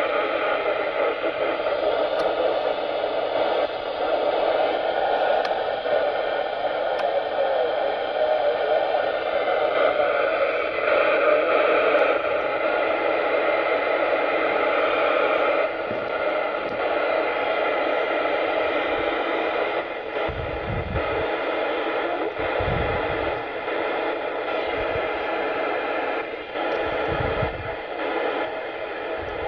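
FM receiver hiss and static from a Yaesu FT-847 transceiver's speaker, tuned near 436.2 MHz and stepped down in frequency to search for the BY70-1 CubeSat's weak FM downlink. A few dull low thumps come in the last third.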